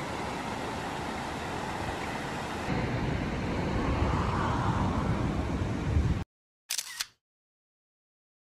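Steady rushing of a shallow rocky river over rapids. About a third of the way in, it gives way to a louder, deeper outdoor rumble, which cuts off abruptly. After a short silence comes one brief double click.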